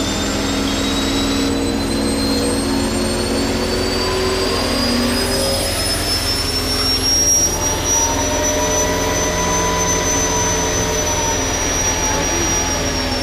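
Abrams tank's AGT1500 gas turbine engine spooling up during a start attempt: a high whine rising steadily in pitch for about eight seconds, then holding and beginning to drop near the end, over a steady rumble.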